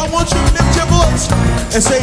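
Live gospel praise-and-worship song: a group of singers over a band with a steady beat.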